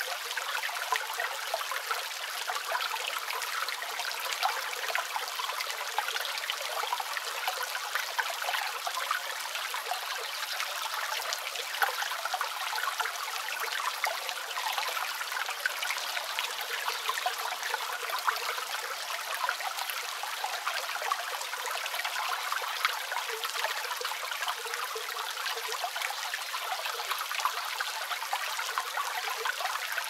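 A small creek waterfall trickling and splashing over tree roots, a steady light splashing with no deep rumble, with rain falling on leaves.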